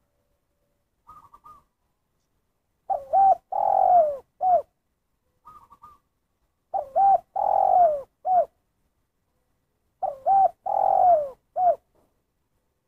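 Spotted dove cooing three times, about three and a half seconds apart: each phrase is two quick notes, a longer coo that falls at the end, then a single short closing note, the 'kuk satu' call. Faint short trilled notes come between the first phrases.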